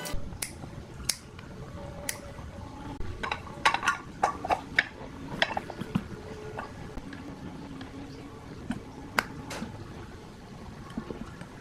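Irregular clicks, clinks and knocks of small hard parts being handled and tapped by hand, thickest a few seconds in, over a low steady rumble.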